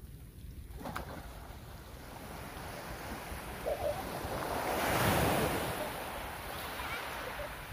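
Small sea waves breaking on a sand and pebble beach; the surf swells to a peak about five seconds in as a wave breaks at the water's edge, then eases off.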